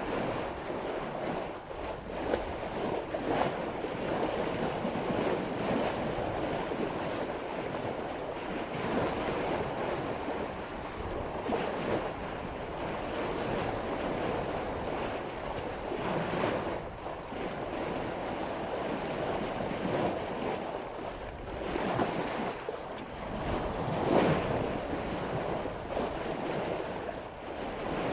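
Water rushing and splashing along a sailboat's bow as it cuts through ocean waves at about 5 knots, swelling in louder surges a few times as the boat meets waves. Wind buffets the microphone.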